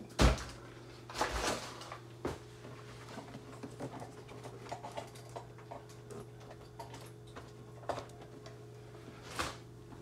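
Handling noises as the machine is plugged back in: a sharp knock just after the start, rustling about a second in, then scattered faint clicks and another tick near the end, over a steady low hum.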